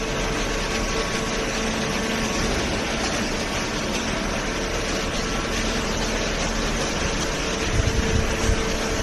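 Hydraulic baler's electric motor and hydraulic pump running with a steady hum and a whine, joined by a low uneven rumble near the end.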